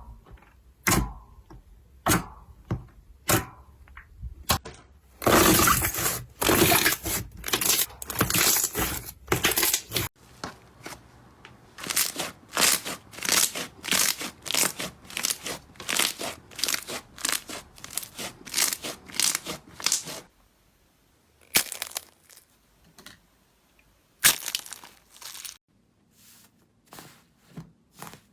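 Slime being squeezed and poked, making sharp crackling clicks and pops: a dense run of crackling from about five to ten seconds in, then a steady string of clicks about twice a second, thinning out to a few scattered clicks near the end.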